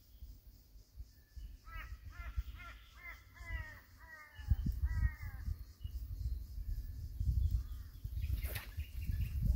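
A crow calling a run of about eight harsh caws, each sliding down in pitch, over about four seconds. From about halfway through there is a low rumble, and a single sharp click comes near the end.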